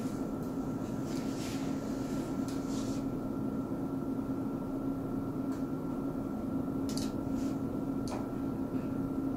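Steady hum of electrical equipment with two constant tones, over which a skin marker pen makes faint short scratchy dabs as it dots a line onto the skin, a few in the first three seconds and more near the end.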